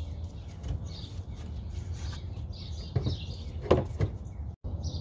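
Birds chirping outdoors over a steady low hum, with two short clunks about three and four seconds in, the second louder; the sound drops out for an instant near the end.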